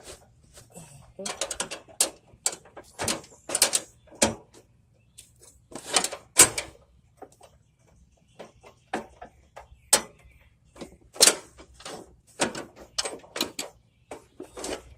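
Irregular metallic clicks, knocks and scrapes as a Troy-Bilt riding mower's deck hanger arms and fittings are refitted by hand.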